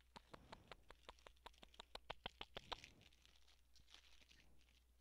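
Plastic snack bag crinkling in the hands as it is worked open: a quick run of small crisp crackles, about six a second, for the first three seconds, then softer rustling.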